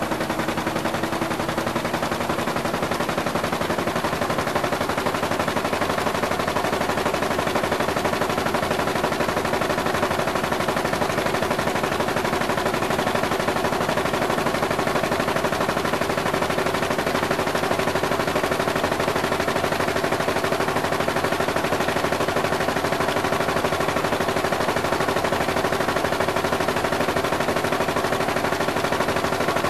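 Newspaper press folder running at speed: a dense, rapid mechanical clatter over a steady machine hum.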